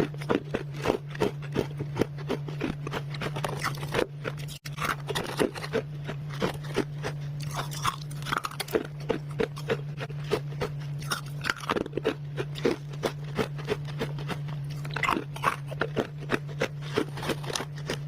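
A person chewing small bites of freezer frost close to the microphone: a quick run of crisp, crackly crunches, several a second.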